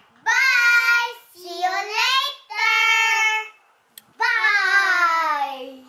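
Children singing a short tune in four drawn-out phrases, the last one sliding down in pitch.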